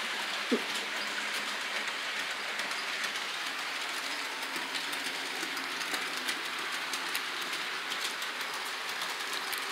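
Model trains running on the layout's track: a steady rolling whir with light, scattered clicks of wheels over the rails. A brief rising squeak about half a second in.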